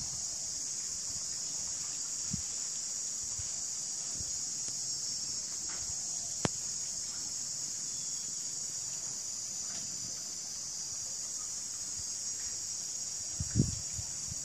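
Steady, high-pitched chirring of insects, with a single sharp click about halfway through and a couple of soft knocks near the end.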